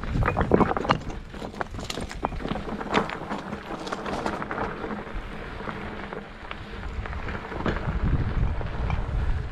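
Wind buffeting the microphone with a low rumble, and a quick run of clicks and rattles in the first few seconds.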